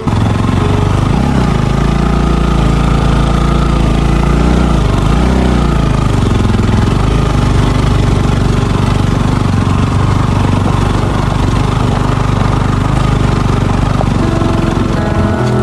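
Motorcycle engine running while riding over a rough dirt track, its pitch rising and falling with the throttle in the first few seconds, over a steady rush of wind and road noise.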